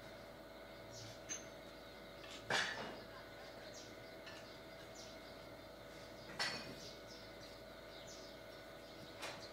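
Quiet foundry-floor background: a faint steady hum, broken by a few sharp knocks, the loudest about two and a half seconds in and again about six and a half seconds in, with a smaller one near the end.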